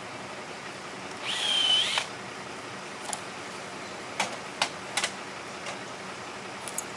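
Short run of a cordless drill about a second in, its high motor whine sagging briefly then recovering before it stops, followed by a scatter of sharp clicks and taps.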